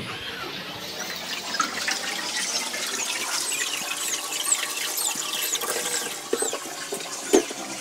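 Tap water running into a steel sink as bean sprouts are rinsed in a plastic colander. Over it, from about two seconds in, kittens mew many times, short and high-pitched, with a few light knocks of the colander near the end.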